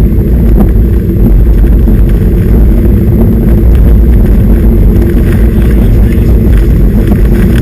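Strong wind buffeting the microphone: a loud, steady, low rumble with no breaks.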